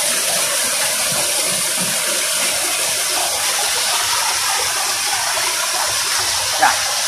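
Small waterfall and stream rushing over rocks: a steady, even wash of water.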